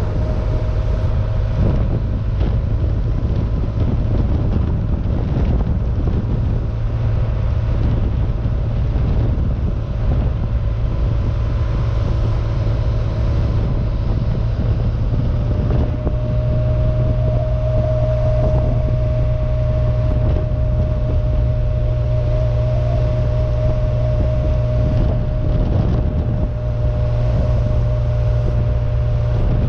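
A 1972 Porsche 914-6's air-cooled 2.7-litre twin-plug flat-six cruising at a steady pace, its note lifting slightly midway. It is heard from the open, roof-off cockpit, with wind on the microphone.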